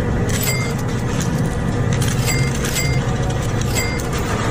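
Coins clinking several times as they are handled on a counter, each clink short with a brief metallic ring, over a steady low hum of room noise.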